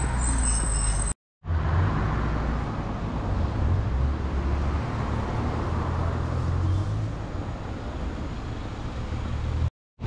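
Car driving along: steady engine and road noise with a low rumble. It drops out briefly about a second in and cuts off just before the end.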